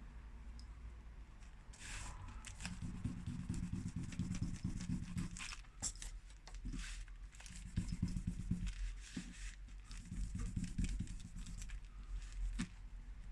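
Scrubbing and scraping on a smartphone's frame while old screen adhesive is cleaned off, in spells of quick rough strokes with short pauses and small clicks between them.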